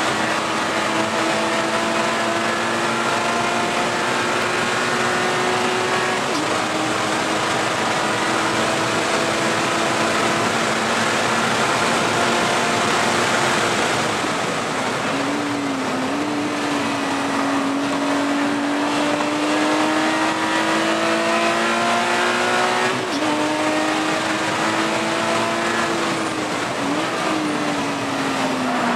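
Porsche Cayman race car's flat-six engine heard from inside the cockpit, running hard at high revs on a fast lap over loud wind and road noise. Its pitch steps or dips briefly at gear changes about four times and falls near the end as the car slows.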